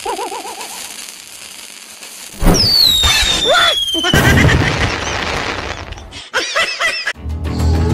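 Firework rocket going off: a loud launch about two and a half seconds in with a high whistle that falls in pitch. About a second later come firework bursts and crackling. Music comes in near the end.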